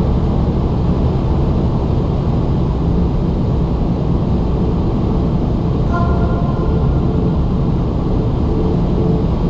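Car driving on a snowy road: a steady low rumble of engine and tyre noise. A brief higher tone sounds about six seconds in.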